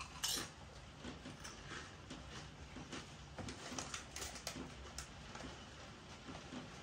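Lorenz Crunchips ridge-cut potato crisps being chewed: faint, irregular crunches and crackles, a slightly louder one just after the start.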